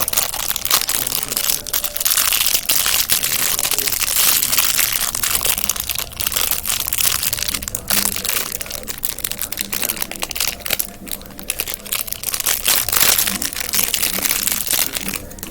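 Crinkly packaging being torn open by hand and crumpled, a continuous dense crackling and rustling.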